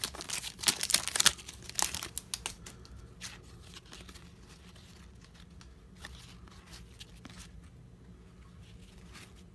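Shiny foil wrapper of a hockey card pack being torn open and crinkled by hand, loudest in the first two seconds or so. Then quieter rustles and light ticks as the cards are slid and flipped through.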